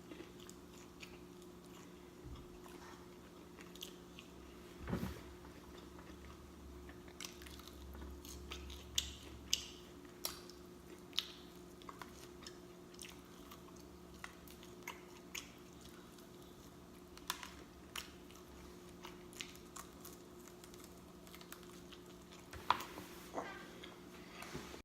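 A person chewing and smacking on fried chicken close to the microphone: wet mouth noises with scattered sharp crunches of crispy skin. The crunches are louder about nine to ten seconds in and once near the end.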